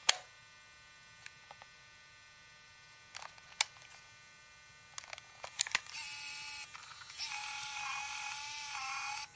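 MiniDV camcorder tape mechanism: scattered light clicks of the moving parts, then the small servo motor whirring as the tape-eject mechanism runs, briefly about six seconds in and again for about two seconds near the end.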